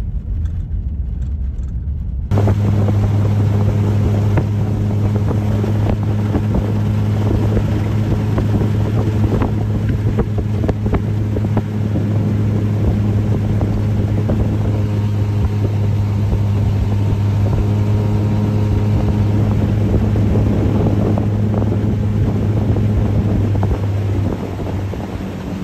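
Low vehicle rumble on a gravel road, then after a cut about two seconds in, a small boat's motor running steadily at speed with wind on the microphone. Near the end the motor's steady note drops away.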